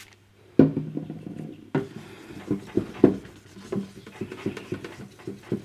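Hand rubbing a clear plastic radio dial lens with a fine abrasive pad on a lubricated surface: uneven back-and-forth strokes, a few per second, with occasional sharper clicks, starting about half a second in. This is the last and finest sanding stage in taking the scratches out of the lens.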